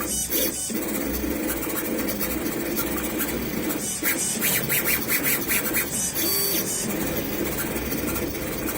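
Small CNC engraving machine running as it engraves a metal pet ID tag, its motors whirring and changing pitch as the head moves, with a busier, chattering stretch about four seconds in.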